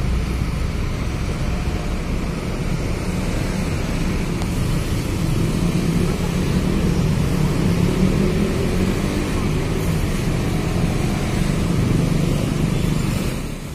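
Diesel engine of a Mercedes-Benz OH-1626 coach running as the bus manoeuvres slowly, a steady low engine sound that grows somewhat louder through the middle.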